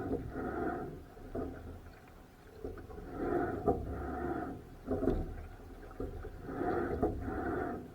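Oars working a rowing boat in a steady rhythm, a stroke about every three and a half seconds, three strokes in all. Wind rumbles on the microphone underneath.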